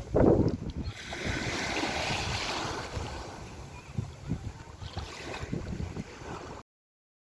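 Wind buffeting the microphone in gusts over the wash of waves. The sound cuts off abruptly to dead silence near the end.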